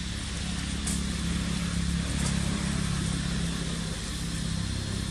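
Motor vehicle engine running steadily, a low hum that swells from about a second in and eases off near the end, over a steady high hiss.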